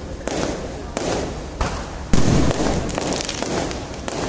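Aerial firework shells bursting overhead in a quick series of bangs, about one every half second or so. The loudest comes a little past halfway and is followed by a brief crackle.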